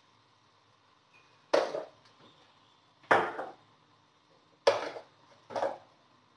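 Four sharp clatters of kitchenware being handled at a kitchen sink, each dying away within half a second, spaced about a second and a half apart.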